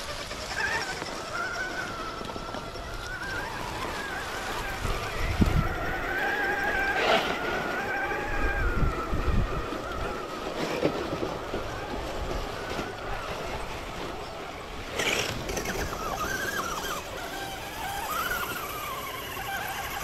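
Small RC crawler trucks' electric motors and gears whining, the pitch wavering up and down with the throttle, with two sharp knocks.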